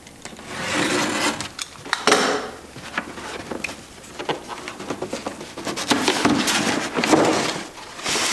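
A cardboard box being opened by hand. The packing tape is cut, then the flaps scrape, rub and rustle with sharp clicks as they are pulled apart and the lid is lifted, in two louder stretches.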